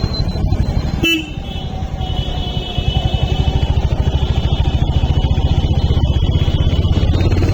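Royal Enfield Hunter 350's single-cylinder engine and exhaust running with a steady, even beat. About a second in it drops briefly after a click, then picks back up.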